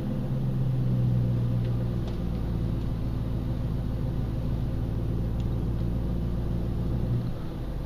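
2000 Mustang GT's 4.6-litre V8 through a MagnaFlow exhaust, running steadily under way and heard from inside the cabin. The engine note drops about seven seconds in.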